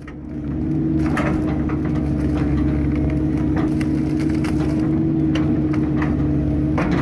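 A Hyundai 160 excavator's engine and hydraulics run steadily while its Ransom RSH40 stump splitter tears a large stump apart. Wood cracks and splinters repeatedly over the machine's steady hum, in clusters about a second in, around five to six seconds in, and near the end.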